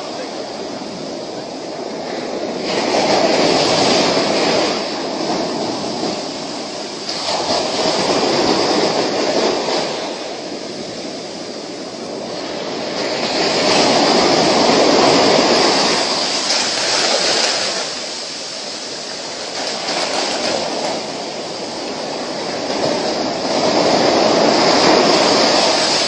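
Ocean surf breaking and washing up a sandy beach, a steady rushing that swells and fades in slow surges every few seconds.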